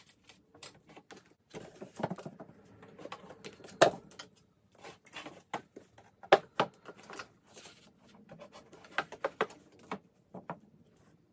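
Books being pulled from a rolling book cart and set into a cube bookshelf: irregular soft knocks, taps and rustles of covers against shelves and each other, the loudest knocks about four and six seconds in.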